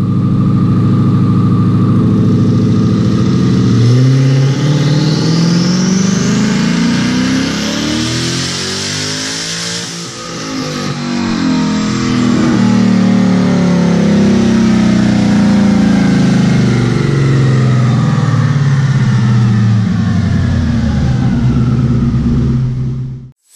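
Twin-turbocharged 5.0 L Coyote V8 of a 2016 Mustang GT under full throttle on a chassis dyno, its note climbing with the revs and a turbo whistle rising a few seconds in. The sound dips briefly about halfway, then runs loud again and cuts off suddenly near the end.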